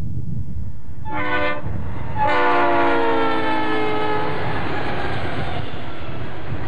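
Santa Fe diesel locomotives' air horn sounding a short blast and then a longer one, the pitch of the long blast dropping as the lead units pass close by. Under it runs a steady rumble from the passing locomotives and train.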